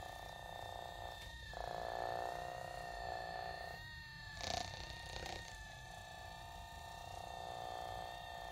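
Morelax percussion massage gun's brushless motor running with a steady buzzing hum and thin whine as its ball head works on the forearm. Its tone shifts a little about a second and a half in and again near four seconds, with a short rustle just after.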